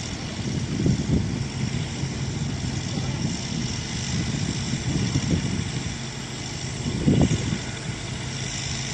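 Mobile crane's diesel engine running steadily while it holds the suspended dome roof, with a few low bursts of buffeting over it, the strongest about seven seconds in.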